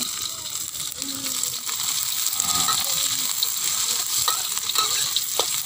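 Sliced shallots and garlic sizzling as they drop into hot oil in a wok, the sizzle jumping up at the start and carrying on steadily. A metal spatula scrapes and clicks against the wok as they are stirred.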